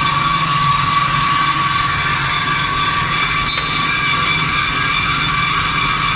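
Automatic CNC metal-cutting band saw running: a steady machine hum with a high, even whine of several tones over it.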